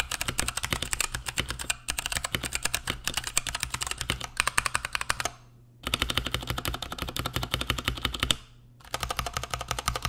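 Typing on a Durgod Hades 68 mechanical keyboard with Kailh Box Brown tactile switches in an anodized aluminium case: a rapid run of key clacks, broken by two short pauses. In the second half only the right hand is typing, on the keys around Enter, Shift and the arrows.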